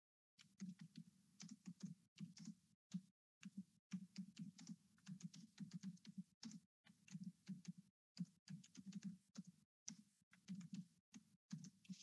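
Faint typing on a computer keyboard: a quick, uneven run of key clicks with a few short pauses.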